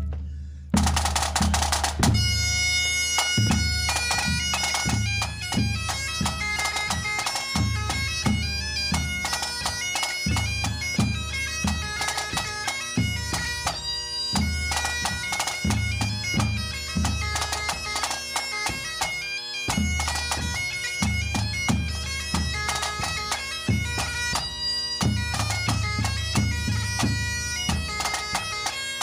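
Pipe band playing a quick march: a snare drum roll opens it, then the bagpipes strike in about two seconds in, with steady drones under the chanter melody and a bass drum beating along.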